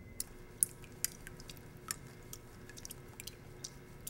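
Faint, scattered clicks and wet taps of metal spoons against small bowls of egg dye as eggs are dipped and turned in the dye.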